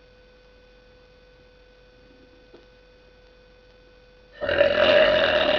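A girl's deliberate burp, made on command without soda, loud and lasting about a second and a half. It starts near the end, after a few seconds of quiet with only a faint steady tone.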